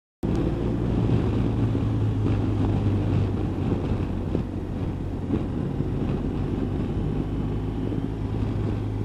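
BMW R1200RT motorcycle's boxer-twin engine running at a steady cruising speed, with wind rush over the helmet-mounted microphone. The sound cuts in suddenly just after the start.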